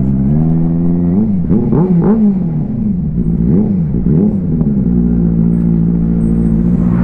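Benelli 600i's inline-four engine at low speed, blipped up and down a few times in the first half, then settling to a steady idle.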